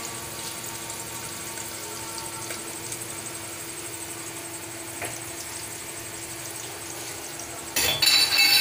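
Onion and green chilli frying in oil in an aluminium pressure cooker on a gas flame: a steady sizzle. Near the end, a brief loud sound with ringing tones cuts in.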